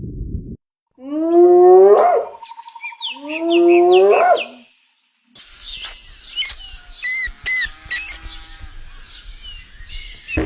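Two loud animal calls, each about a second long and rising in pitch, a couple of seconds apart. A different recording of high chirps and clicks follows.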